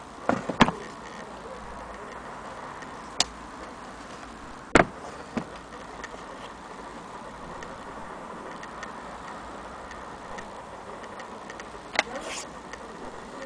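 A handful of sharp, irregular clicks and knocks from an antique Willcox & Gibbs sewing machine and its wooden base being handled and tipped over. The loudest knocks come about half a second in and near five seconds in, and a click with a short rattle comes near the end.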